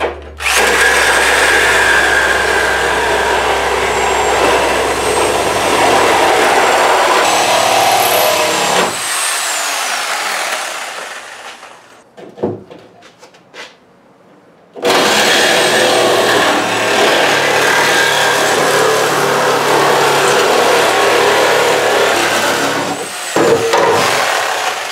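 Reciprocating saw cutting through the steel roof pillar of a car body shell. It makes two long runs of cutting, about ten seconds each, with a pause of a few seconds between them. The saw chops through the pillar really easily.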